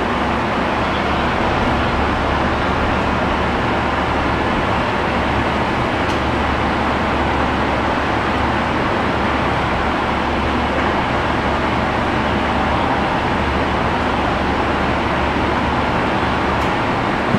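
Madrid Metro Line 5 train running between stations, heard from inside the carriage: a steady, even running noise with a constant low hum underneath.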